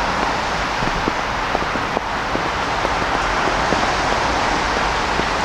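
Outdoor city street ambience: a steady, even hiss of street noise with faint, irregular small ticks through it.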